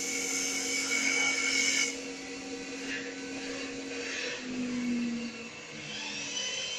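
CNC wood-turning lathe with a Yaskawa servo drive cutting a spinning wooden spindle: a steady hiss of the tool shaving wood over the machine's steady hum. About two seconds in the cutting noise drops off to a lighter scraping, and near the end a whine rises and falls.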